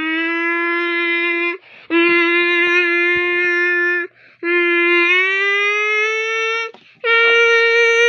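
A person's voice holding long, steady tones, four in a row, each cut by a short pause for breath, the pitch sliding slowly up and down.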